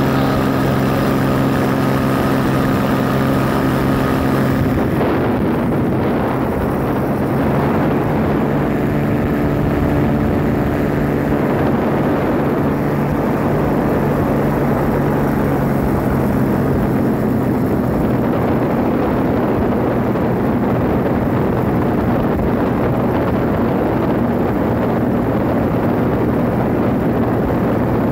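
Paramotor engine and propeller running steadily in flight, mixed with wind rushing over the microphone. A clear engine hum dominates for about the first five seconds, then gives way to a broader rush.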